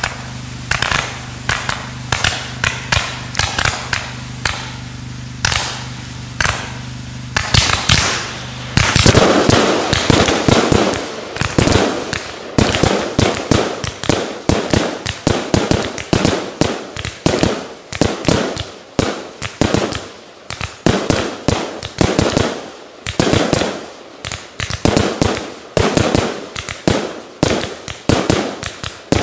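Consumer fireworks going off: comets launching and small aerial shells bursting in a run of sharp bangs. The bangs are spread out at first, then come several a second, almost without a break, from about nine seconds in.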